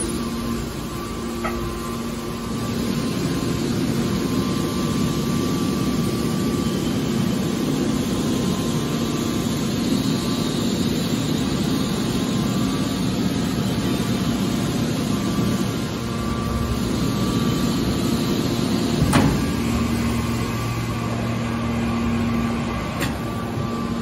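Hydraulic power unit of a car baler shear running with a steady hum made of several held tones. A sharp knock comes about nineteen seconds in.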